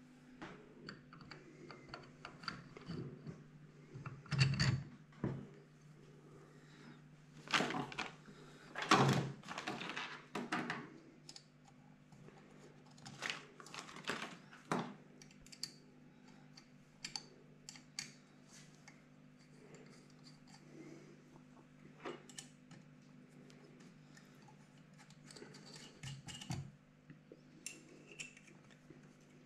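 Small metal engine parts and hand tools handled on a workbench: scattered clinks, clicks and light clatters, with some rustling of a parts bag, while the cylinder head and its nuts are fitted to a horizontal Minarelli 50cc scooter engine.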